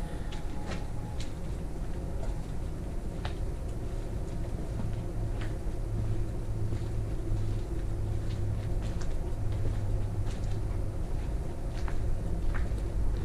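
Steady low rumble with scattered light clicks and soft crunches of footsteps on a gritty, debris-strewn concrete floor inside an empty building.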